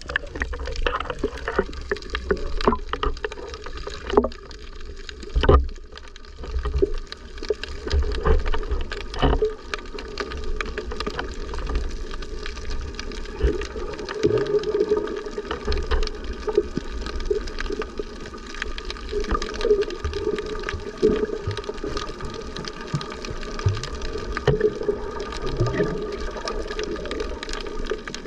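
Water sloshing and gurgling while snorkeling, with a low rumble underneath and scattered short clicks and knocks.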